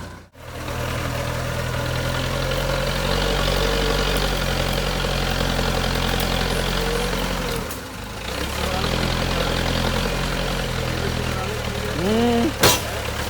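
JCB 3CX backhoe loader's diesel engine running steadily. Near the end there is a short rising tone and then a single sharp knock.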